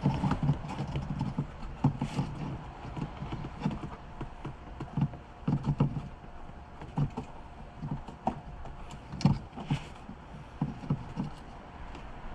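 Irregular knocks, clunks and scrapes of a fuel pump assembly being pushed down into a car's fuel tank opening and its gasket worked into place by hand.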